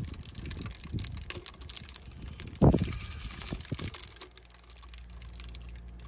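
Dehydrated resin residue crackling and ticking in the hot stainless boiling chamber of a water distiller used to distill resin-wash alcohol. This crackling is normal. A loud low thump comes about two and a half seconds in, and a low steady hum takes over in the last two seconds.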